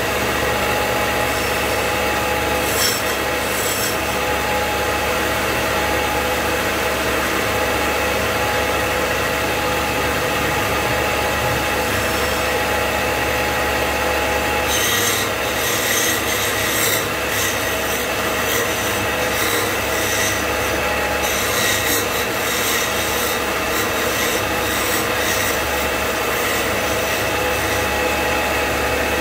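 Wood lathe motor running steadily while a hand chisel scrapes and cuts the spinning wooden spindle. The cutting comes briefly about three seconds in, then in repeated strokes through the second half.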